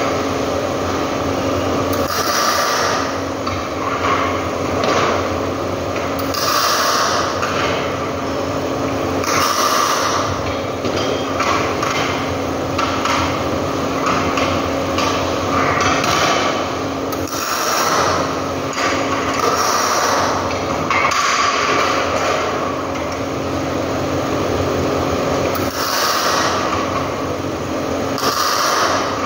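Sheet-metal work at a steel bench: repeated light taps and clinks of metal on metal, with short hissing bursts every few seconds, over a steady hum.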